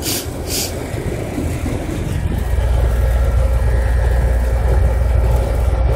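Outdoor unit of a 2014 York heat pump running, a steady low hum and rumble from its compressor and condenser fan that grows louder about two seconds in, with a faint whine above it.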